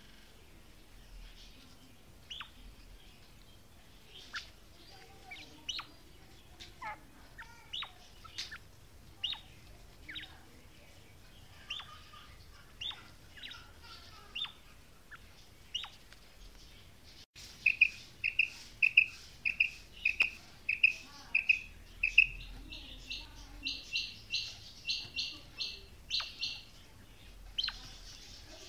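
Female quail calling. At first it gives scattered short, sharp chirps. Partway through comes a loud run of evenly spaced whistled notes, about two a second, then a quicker, higher-pitched series of notes.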